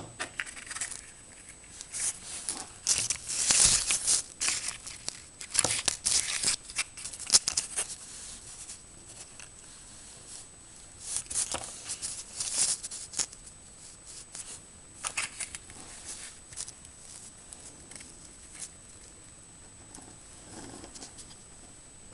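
Copper solder wick being handled and snipped: irregular bursts of short rasping clicks and crunches, heaviest in the first several seconds and again in a few shorter bursts later.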